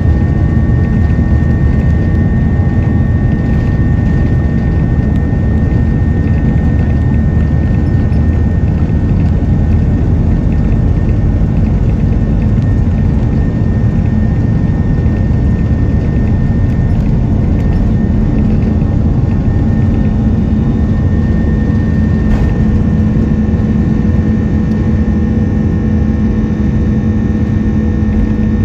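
Airbus A330-300 turbofan engines at takeoff thrust, heard from inside the cabin over the wing during the takeoff roll and lift-off: a loud, steady rush with deep rumble and a few steady whining tones.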